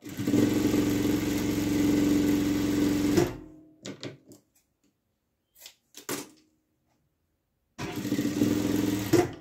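JUITA industrial sewing machine stitching a fabric strip onto a patchwork block in two steady runs. The first lasts about three seconds and stops sharply. After a few brief soft noises, a second run of about a second and a half comes near the end.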